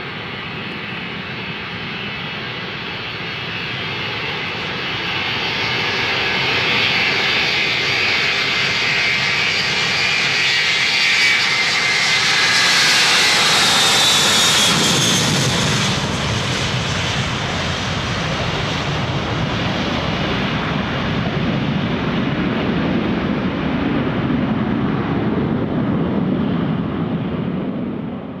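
Boeing 707-321B's four Pratt & Whitney JT3D turbofans at takeoff power during the takeoff roll and climb-out, screaming loud. The sound builds to its loudest about halfway through as the jet passes, with a high whine dropping in pitch. It then turns into a deeper rumble as the aircraft climbs away.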